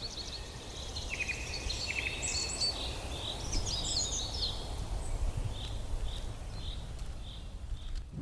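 Songbirds singing: quick chirps and trills, then a single note repeated about twice a second in the second half, over a low rumble of wind or outdoor ambience.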